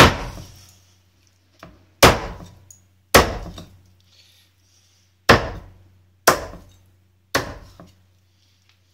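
Meat cleaver chopping through a raw chicken carcass and its backbone onto a wooden chopping block: six sharp thwacks at uneven intervals, each dying away within half a second.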